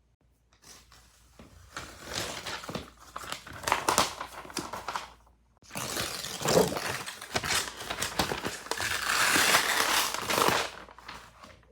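Packaging crinkling and crumpling as it is handled, in two bouts with a short pause about five and a half seconds in.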